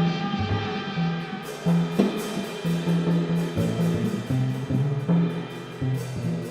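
Live jazz trio: double bass playing a repeating low line under a drum kit with cymbal strokes, and a held brass note that fades out about a second and a half in.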